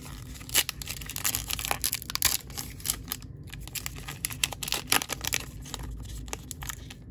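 A baseball card pack's wrapper being torn open and crinkled by hand: a run of sharp rips and crackles, with a short pause a little past three seconds in.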